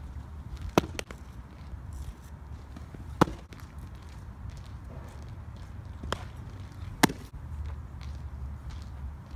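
Sharp pops of a baseball smacking into a catcher's mitt, four in all a few seconds apart, one of them fainter, over a low steady rumble.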